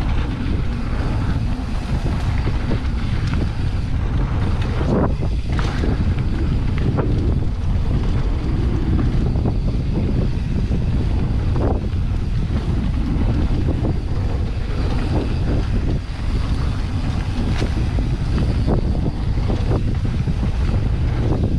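Wind buffeting the microphone of a camera on a mountain bike running downhill, a steady low rumble. The bike knocks and rattles now and then over rough trail.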